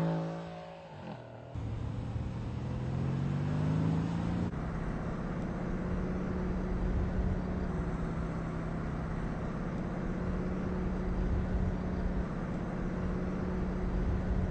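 Mercedes-Benz C63 AMG Estate's V8 engine: a loud pass-by fading with falling pitch in the first second, then the engine pulling up steadily in pitch under acceleration for a few seconds, then holding a steady drone at constant speed.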